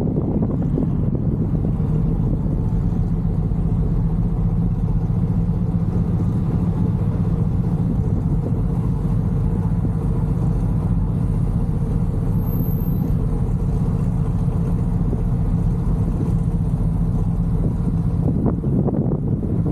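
Car engine idling with a steady, even low hum while the car sits in slow traffic.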